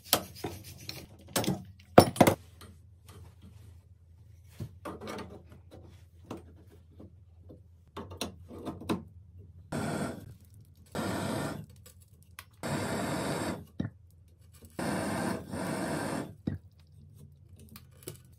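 Sharp clicks and scraping of hand tools on copper pipe in the first few seconds. Then, from about ten seconds in, four separate bursts of steady hiss, each a second or so long: a plumbing torch flame heating copper fittings for soldering.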